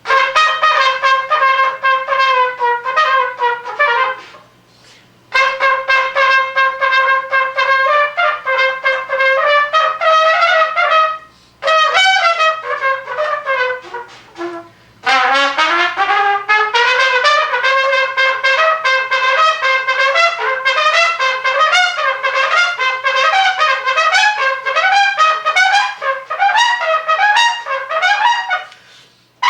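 Unaccompanied solo on a single melody instrument, playing fast runs of notes in phrases with short pauses between them. About halfway through, a phrase drops low and then climbs steadily back up.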